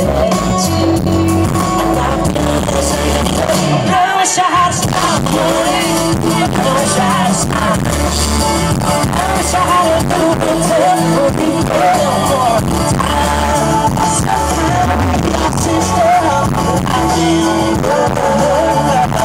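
Live band music with a male lead singer and guitar, loud and continuous, heard from within the crowd.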